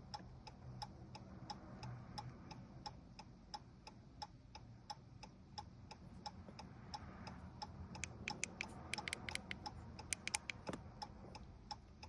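Steady, even ticking at about three clicks a second, with a quicker run of sharper clicks about two-thirds of the way through, heard while a key programmer clears the keys of a Chrysler 200.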